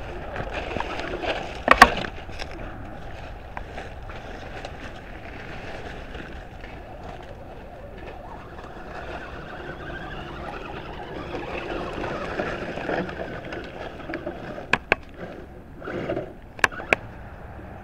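Electric RC crawler truck driving through dry leaves and sticks: a faint motor whine over the crackle of leaf litter, with sharp snaps of twigs, the loudest about two seconds in and several more near the end.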